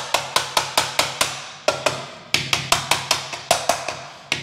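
Rubber mallet beating a plastic toilet flange down onto a freshly glued 4-inch drain pipe: quick runs of knocks, about four to five a second, with short pauses between runs.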